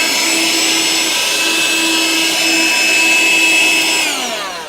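G-Tech 9.6 volt cordless handheld vacuum cleaner running, a rush of air with a steady high whine. It is switched off about four seconds in and its motor winds down, the whine falling in pitch.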